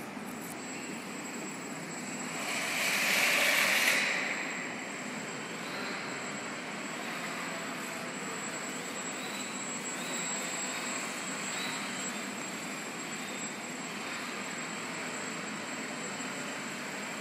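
Small electric motor and propeller of a 150 g depron Yak-54 indoor aerobatic model plane buzzing in flight, its pitch wavering with the throttle. The sound swells loudly for about two seconds, around two to four seconds in, as the plane passes close.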